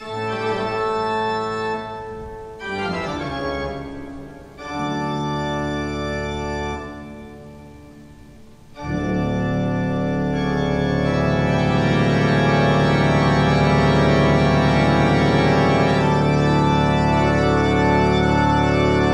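Background organ music: a few sustained chords, then one long chord held through the second half.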